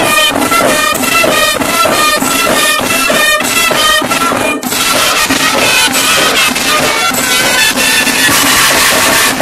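A group of handheld wind pipes with flared brass bells, played together Kerala-temple style: a shrill, reedy line in short repeated notes for about the first four seconds, then a denser continuous blast, over a steady drone.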